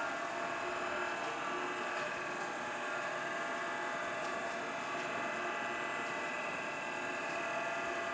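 Electric stirrer motor of a stainless-steel mixing tank running steadily, a mechanical whir with several steady tones, as it stirs water and shampoo base.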